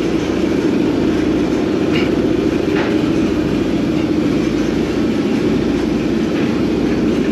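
Tugboat's engine-room machinery running steadily, a loud, even drone that does not change in speed.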